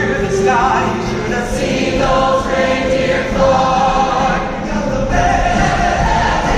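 Large choir singing with instrumental accompaniment.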